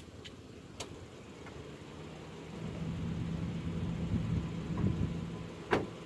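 A road vehicle passes with a steady low hum that swells for a few seconds in the middle. A few sharp clicks come early and one louder click near the end, as something is handled at a car's open boot.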